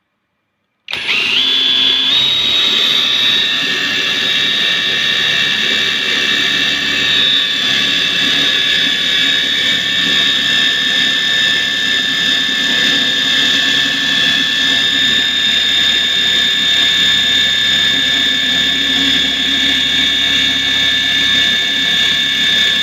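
Impact wrench driving a hex-shank drill bit into teak wood. A loud, steady motor whine starts suddenly about a second in, climbs in pitch as it spins up, then holds steady.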